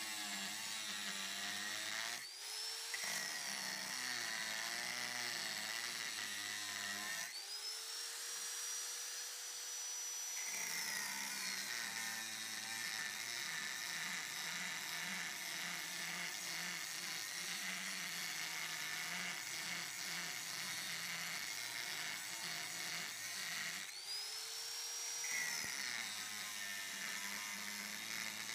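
Electric angle grinder grinding a steel knife blank, with a continuous rasping whir. Three times the motor's whine climbs sharply as the disc comes off the steel, most of all near the middle, then drops back as it bites again.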